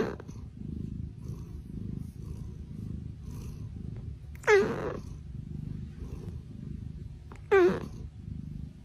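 Sleeping domestic cat purring steadily, with a short high squeak that falls in pitch three times, a few seconds apart.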